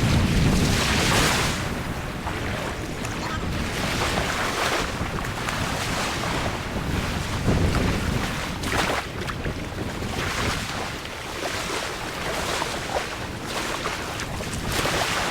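Wind buffeting the microphone over the wash of open water, swelling in gusts every two to three seconds.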